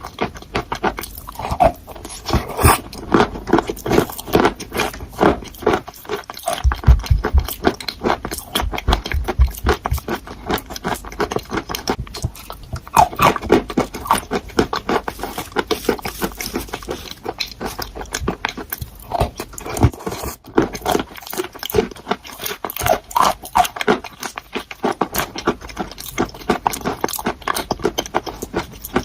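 A person chewing crunchy chalk close to the microphone: a fast, dense run of crunches and clicks with a few brief pauses.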